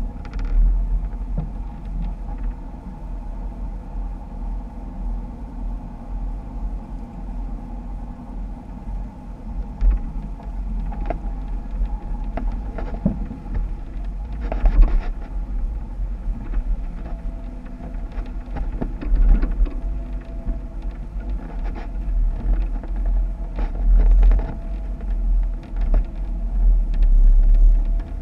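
Jeep engine running while off-roading, under a heavy low rumble with scattered knocks and clunks.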